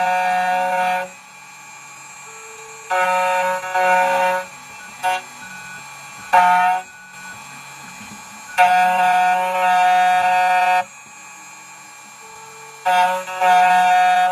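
CNC key cutting machine running while it cuts a key blank. Its motors give a steady, high whine that starts and stops abruptly in bursts of one to two seconds, with a lower hum in between.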